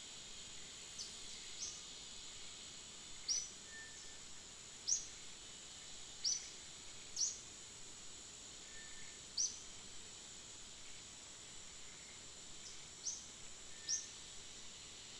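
Short high chirps, each falling slightly in pitch, come one every second or two over a steady high insect hiss.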